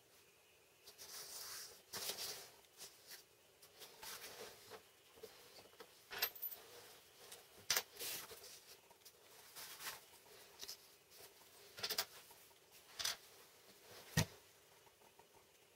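Handling noise at a wooden workbench: sheets of printed paper rustling, and small metal parts such as washers being picked up and set down on the wooden top, giving scattered light clicks and taps. One sharper tap comes near the end.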